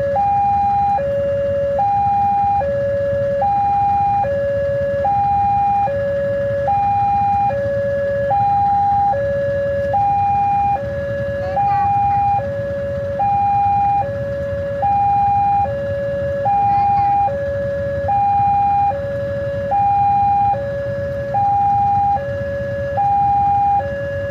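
Train siren sounding a two-tone hi-lo wail, alternating evenly between a higher and a lower note, each held about a second. It repeats without a break over a steady low rumble.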